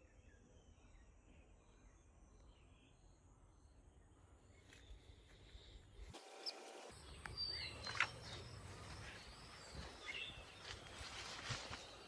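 Faint outdoor ambience with small birds chirping in short repeated notes. About six seconds in it changes abruptly to louder noise with sharp chirps and clicks, the loudest click about eight seconds in.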